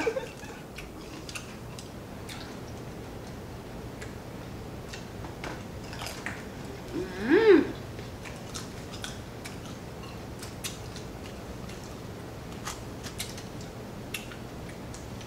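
Close-up eating sounds from chicken wings and fries: scattered small clicks and smacks of chewing and finger-licking, with a brief hummed voice sound, rising then falling, about seven seconds in.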